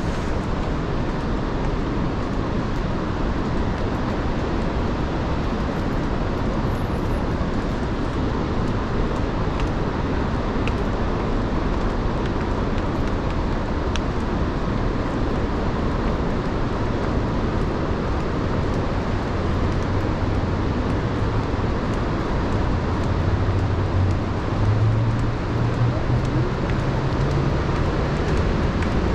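A vehicle running with steady road noise. Its low engine hum rises in pitch in steps during the last third.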